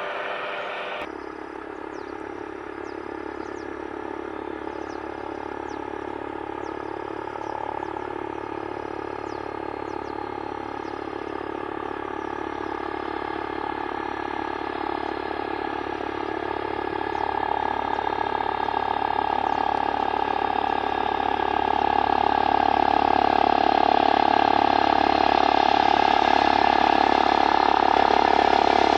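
Airbus ACH145 D-3 (five-bladed H145) twin-turbine helicopter flying toward the listener, a steady turbine and rotor whine that grows steadily louder, strongest over the last third.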